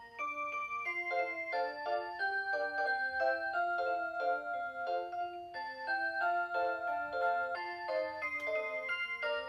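Rhythm Clock Aria Cantabile alarm clock playing an electronic melody in its Aurora Sound voice. The tune runs on without a break, with chords sounding under the melody line.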